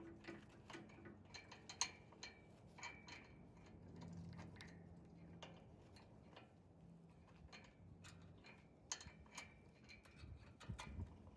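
Faint, irregular small metallic clicks and ticks as a nut is turned by hand along the threaded end of a snowblower's discharge chute lock cable. A faint low hum runs through the middle.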